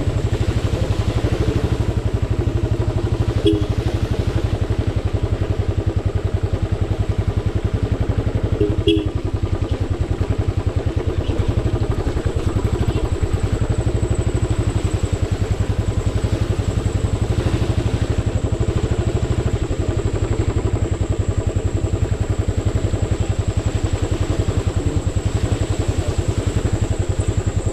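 Royal Enfield motorcycle engine running steadily at an even, low speed, its exhaust pulses dense and low. A single brief knock comes about nine seconds in.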